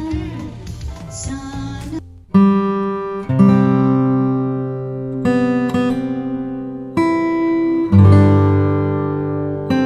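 Recorded music playing through a Bluetooth party speaker. One song with singing ends about two seconds in, then a new track starts with strummed acoustic guitar chords, each chord ringing out for one to two seconds before the next.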